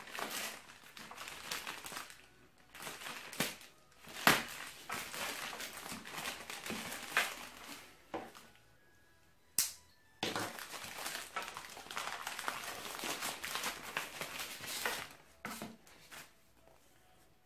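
White plastic postal mailer being crumpled and torn open by hand, with long stretches of crinkling and rustling broken by short pauses. Two sharp clicks stand out above it, about four and nine and a half seconds in.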